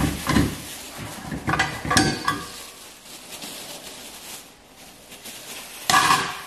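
Plastic wrapping rustling and crinkling as loose metal parts and hardware are unwrapped, with light clinks and knocks of the parts. A burst of louder rustling comes near the end.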